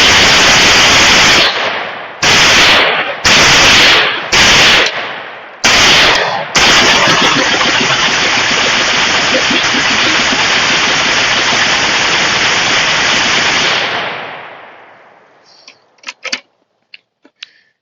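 Pioneer Arms Hell Pup, an AK-pattern pistol, fired very fast as a simulated machine gun and very loud. Five short bursts come in the first six seconds, then one long unbroken burst of about seven seconds that dies away, with a few faint clicks after it.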